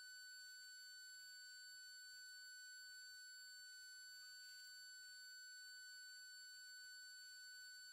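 Near silence: a faint, steady high-pitched electronic whine over a soft hiss.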